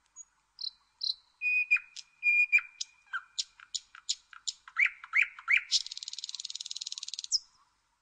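Nightingale singing one long, varied phrase. It opens with a few high whistled notes and a held whistle, moves into a string of sharp, separate notes, and ends with a fast buzzy trill that stops about a second before the end.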